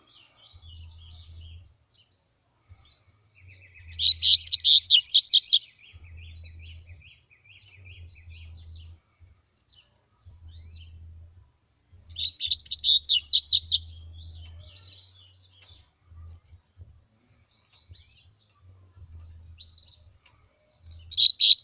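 Caged double-collared seedeaters (coleiros) singing. There are three short phrases of fast repeated high notes, each about a second and a half long and about eight seconds apart, with the last starting near the end. Faint chips come between the phrases.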